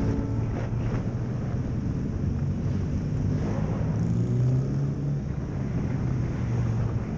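Motorcycle engine running at low revs while riding slowly in traffic, its pitch rising a little about four seconds in, over steady road noise.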